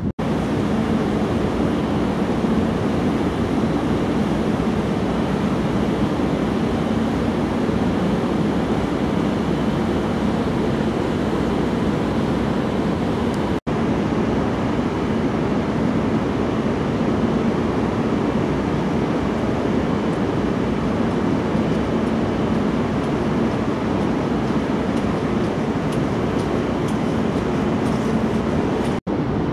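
Steady rumble and rush of wind and sea aboard a cruise ship under way. Two brief dropouts break it, about halfway through and near the end.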